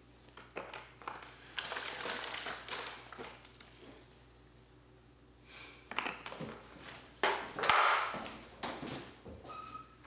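Footsteps and rustling, handling noises of a person moving about right next to the microphone on a wooden floor, with a few sharp knocks. A low steady hum runs underneath.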